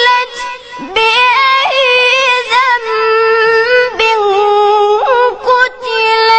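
A child's high voice chanting Quran recitation in a melodic tajweed style, holding long notes with quick ornamental pitch turns, broken by brief breaths.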